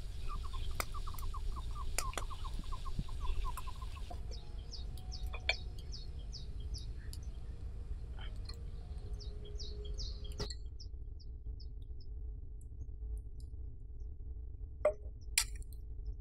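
Birds calling over a low steady rumble: a fast run of short falling notes for the first few seconds, then a string of high, separate chirps. Near the end come two sharp knocks.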